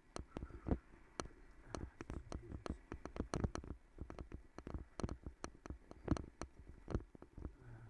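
Road bicycle jolting over stone cobbles: an irregular, continuous clatter of sharp knocks and rattles, several a second, as the tyres hit the setts and the bike shakes.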